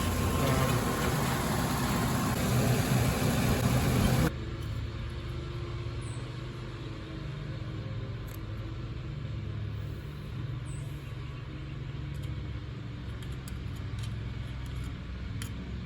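Ford E150 van running with its dashboard blower fan on, working again on a new blower motor resistor: a loud, steady rush of air for about four seconds, then a sudden drop to a quieter, steady low engine hum.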